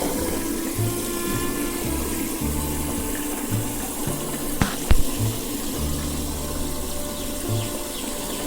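Water running steadily, like a tap or hose flowing, under background music with a stepped bass line; a couple of sharp knocks about five seconds in.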